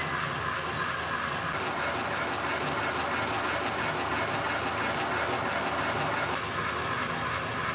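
Universal milling machine running a gear-hobbing attachment: a steady, unbroken mechanical running noise with a constant high whine.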